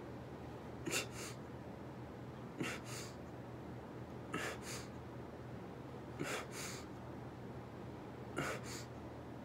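A man's sharp breaths while doing push-ups: a quick double puff with each repetition, about one repetition every two seconds, five in all.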